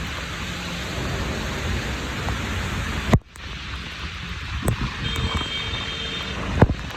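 Heavy rain and strong gusting wind, with wind buffeting the microphone. The sound drops out suddenly for a moment about three seconds in, and a sharp knock comes near the end.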